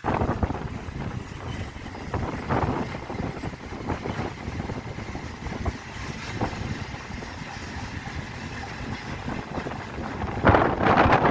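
Freight train rolling past behind a 2ЭС6 electric locomotive: a steady rumble with many irregular knocks. Wind buffets the microphone, with a strong gust near the end.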